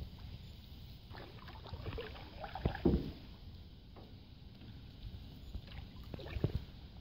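Paddle and hull sounds from a small paddle boat, a canoe or kayak, drifting on calm water: scattered knocks and light splashes, the loudest a little before three seconds in and a cluster a little after six seconds.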